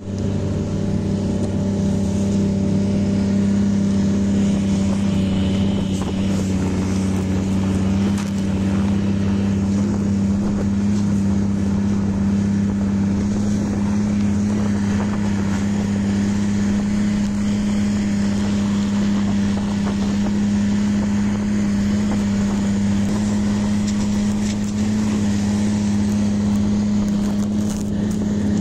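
Snowmobile engine running at a steady, unchanging pitch while riding, heard from the rider's seat.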